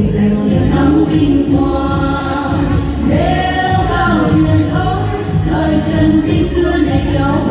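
Voices singing together in a choir over backing music.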